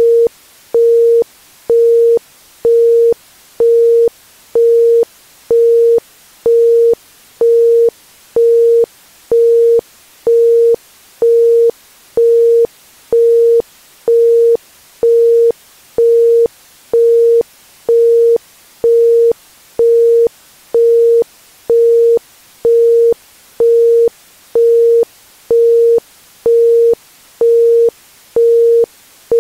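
Isochronic tone: a pure 465 Hz tone switched sharply on and off about once a second (1.05 Hz pulses), made for brainwave entrainment. A faint steady hiss of background noise fills the gaps between pulses.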